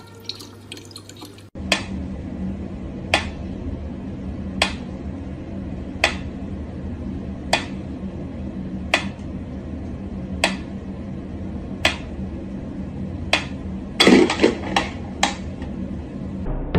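Mechanical pyramid metronome ticking slowly, one sharp tick about every second and a half, over a low steady hum. Near the end the ticks give way to a quick run of several louder clicks and knocks.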